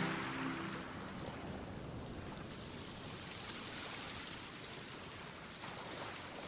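Music dies away in the first second, leaving a steady, faint rushing noise with no distinct events.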